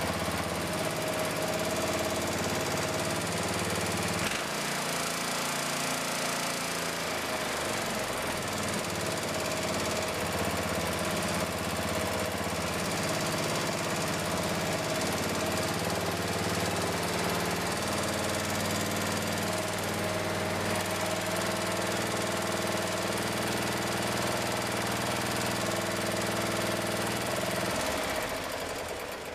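Briggs & Stratton Intek engine of a Craftsman LT1000 lawn tractor running on a newly fitted replacement carburetor, its speed shifting a few times as the low-speed mixture needle is adjusted for a slow, smooth idle.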